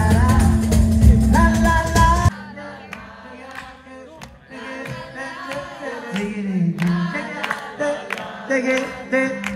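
Live acoustic band (guitars, hand percussion and a male lead voice) playing a song sung in Sicilian. About two seconds in the full band sound cuts off abruptly, leaving quieter audience voices singing along with rhythmic hand clapping.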